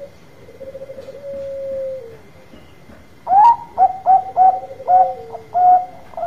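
Bangkok-bred zebra dove (perkutut) singing. First comes a drawn-out coo with a trilled start. About three seconds in, a rising note opens a quick run of about six short, loud staccato coos.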